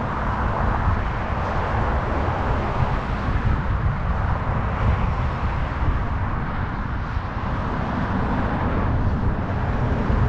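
Steady wind rush and buffeting on the microphone of a bicycle-mounted camera while riding, mixed with the noise of road traffic passing alongside.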